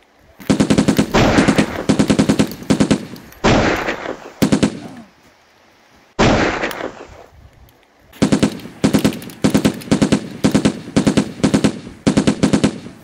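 Gunfire in a firefight: rapid bursts of automatic fire, broken twice by a single heavy shot that rings out and slowly fades, about three and about six seconds in. Long runs of rapid fire follow in the second half.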